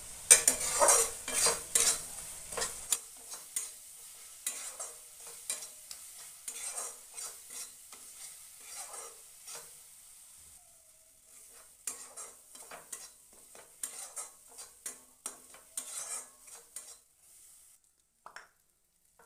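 Flat spatula scraping and stirring a thick onion-and-spice masala around a metal frying pan, a stroke about every half second, over a light sizzle as the masala fries down. The strokes are loudest in the first few seconds, then go on more softly with two short pauses.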